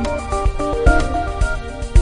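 Background music: an instrumental track with plucked melodic notes over a steady beat.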